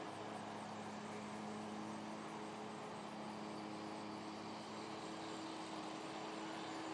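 Battery-powered electric motor and propeller of a foam RC airplane humming steadily in flight, a constant drone over a steady hiss.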